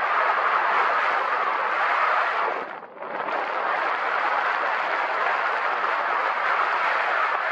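Steady rush of wind over the microphone, briefly falling away about three seconds in.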